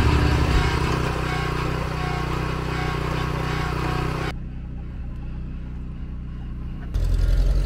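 Steady engine running from a tractor-towed RV sewage pump-out rig. About four seconds in the sound turns duller, and near the end a louder low rumble sets in.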